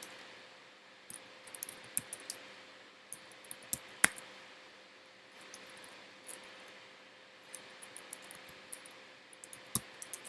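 Irregular clicks of a computer mouse, some in quick clusters, the sharpest about four seconds in, over a faint steady hum.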